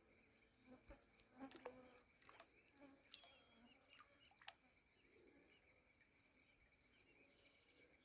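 Insects chirring steadily in a fast, even pulse, high-pitched, with a few faint clicks.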